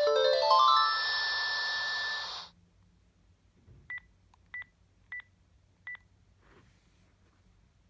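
Panasonic KX-TG7321E cordless phone playing a ringtone: a quick rising run of electronic notes ending in a held tone, which cuts off about two and a half seconds in. Four short, evenly spaced beeps follow, like handset key presses.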